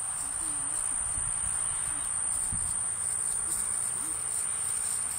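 A steady high-pitched whine holds without a break over an even outdoor background hiss, with a few faint low thumps.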